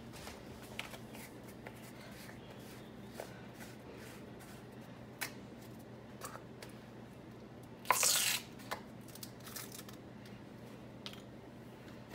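Kitchen handling sounds: scattered small clicks and knocks of a container and utensils being handled, with one short, loud rustling burst about eight seconds in, like a packet being torn or shaken.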